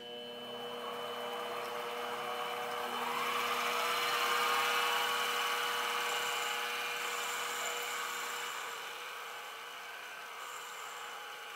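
Small metal lathe running, its drive giving a steady whine, with the noise of the cutting tool facing the end of a metal rod and peeling off chips. The cutting noise swells in the middle and eases after about eight seconds, when part of the whine drops out.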